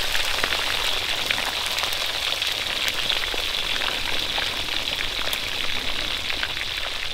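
Two whole fish deep-frying in a wok of hot oil: a steady, hissing sizzle full of small crackles and pops.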